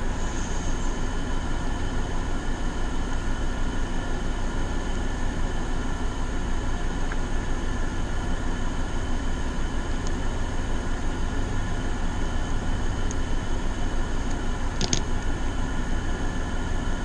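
Steady drone of room air conditioners running, holding many constant tones with a fast flutter, and a single light click about fifteen seconds in.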